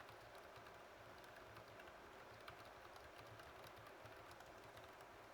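Faint, rapid typing on a computer keyboard: a quick, uneven run of key clicks during a speed-typing test.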